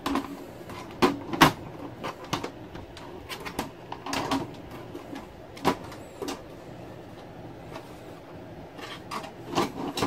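Clear side panel of a PC case being handled and fitted against the case: a series of irregular knocks, clicks and light scrapes, the sharpest about a second and a half in.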